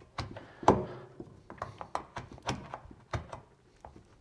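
Small plastic Schwalbe tire levers clicking and knocking against the rim as they pry a mountain bike tire's bead over it, a string of sharp clicks with the loudest about two-thirds of a second in.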